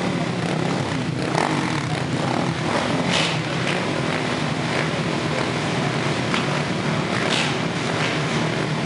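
A grid of racing quad bikes running together on the start line, waiting for the start: a dense, steady engine sound with a few short, sharper sounds over it.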